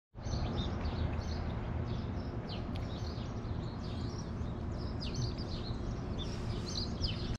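Small birds chirping, many short quick chirps overlapping throughout, over a steady low background noise.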